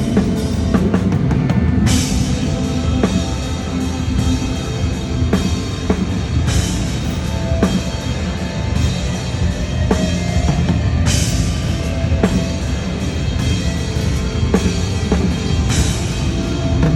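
Live rock band playing through a stadium PA during a sound check: a drum kit with a steady kick and cymbal crashes about every four to five seconds, over a full band sound.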